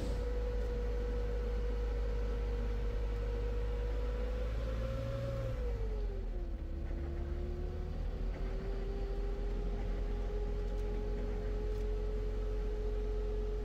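A motor vehicle running steadily with a low rumble and a steady whine that drops in pitch about six seconds in, then holds at the lower pitch.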